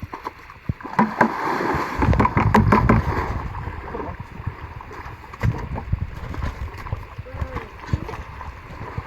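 Water splashing and sloshing, loudest and busiest between about one and three seconds in, then settling to lighter lapping, with faint voices in the background.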